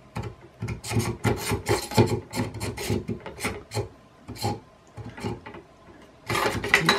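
Irregular scraping, rubbing and clicking of metal parts as the Z-axis shaft of a Creality CR-10 3D printer is worked down into its frame by hand.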